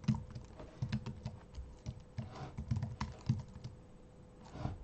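Computer keyboard being typed on: a quick, irregular run of key clicks that stops about a second before the end.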